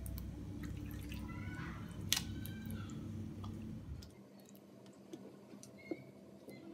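Raw chicken breast cubes dropping into a thick yogurt-and-cream marinade in a glass bowl: faint wet plops and squelches, with one sharp click about two seconds in. A low background hum cuts off about four seconds in.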